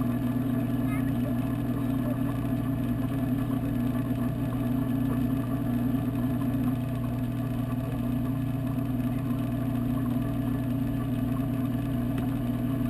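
Steady low mechanical hum of a saltwater aquarium's pumps, heard through the water by a camera submerged in the tank.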